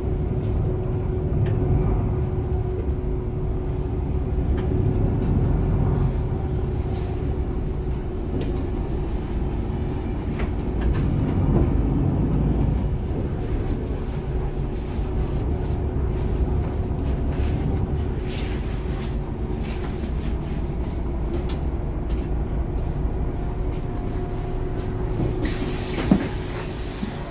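Interior sound of a MAN Lion's City A21 articulated bus with its 360 hp diesel engine running: a steady low rumble with a faint steady whine. Two short, sharp knocks come near the end.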